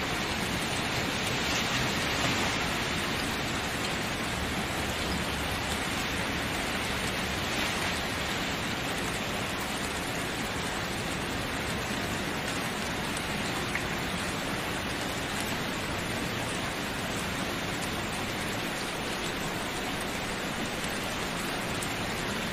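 Steady rain falling, an even hiss of many drops with a few faint individual drop ticks.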